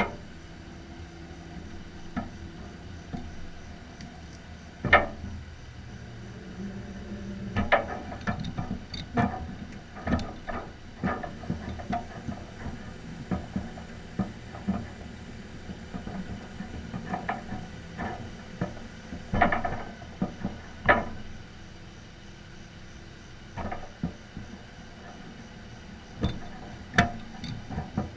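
A truck engine running steadily at idle, under many sharp metallic clanks and knocks at irregular intervals.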